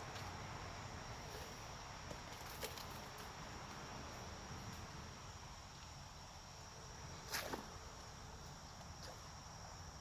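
Insect chorus of night insects, a steady high trill held at one pitch. A few faint clicks, and a short sharp noise about seven seconds in that is the loudest moment.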